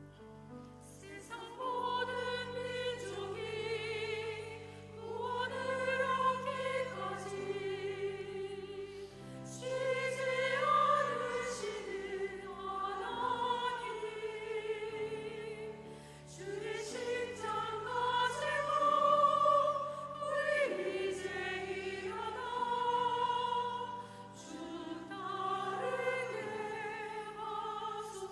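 Church choir singing a sacred anthem in parts, with vibrato, over held instrumental accompaniment. The voices come in about a second in after the introduction and sing in phrases of a few seconds, with short breaks between them.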